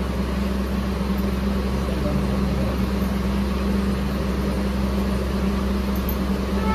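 A motor running steadily with a constant low hum and drone that does not change, and faint voices murmuring underneath.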